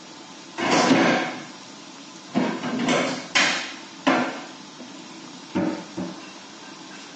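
Steady sizzle of chana dal vadas deep-frying in a kadai of oil. Over it come about six loud knocks from something out of view, the first and longest about half a second in.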